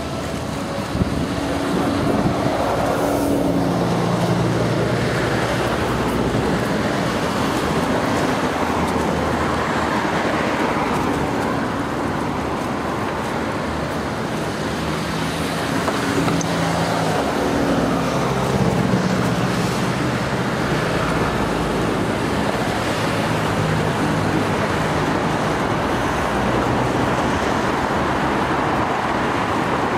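Steady road traffic: the noise of passing vehicles, with engine hum swelling and fading as individual vehicles go by.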